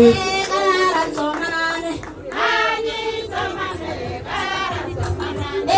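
A group of women singing together in chorus, with a short break in the singing about two seconds in.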